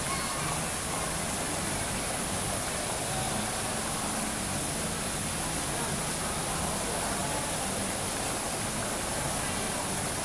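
Indoor fountain's water falling over rockwork in a steady, even rush, with faint voices murmuring underneath.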